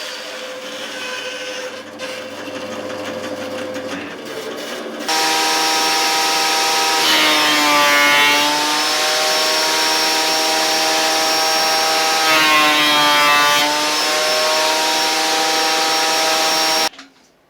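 Woodworking power tool running with a loud whining motor, coming in suddenly after a quieter hum. Its pitch sags twice as the workpiece loads it, and it cuts off abruptly near the end.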